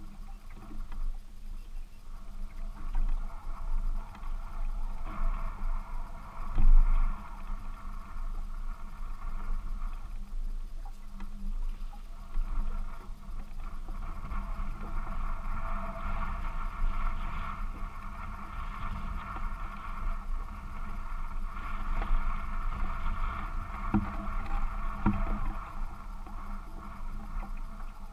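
Wind rumbling on the microphone and choppy water lapping against a small fishing boat's hull, with a knock about seven seconds in and two more near the end.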